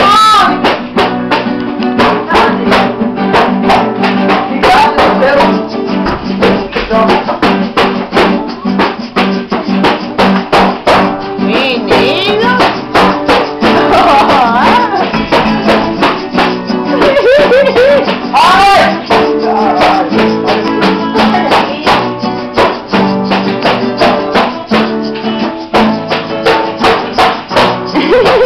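Music with guitar and a fast, steady percussion beat, with a singing voice at times.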